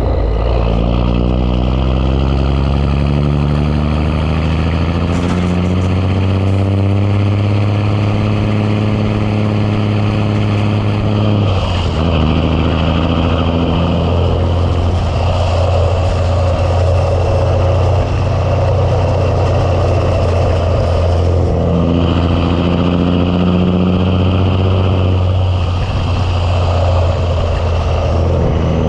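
Ford LT9000's Big Cam Cummins six-cylinder diesel pulling a heavy load, its revs climbing steadily for about eleven seconds, then falling sharply at a gear change. Later the revs climb again and drop at another shift near the end.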